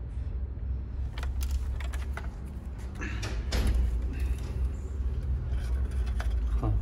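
Scattered light clicks and knocks of small parts being handled and fitted during tail-light reassembly, over a steady low hum.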